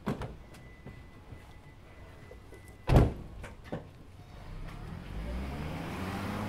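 Car door clicked open and then slammed shut with a loud thud about three seconds in, followed by a couple of lighter knocks. The Toyota estate car then pulls away, its engine sound rising near the end.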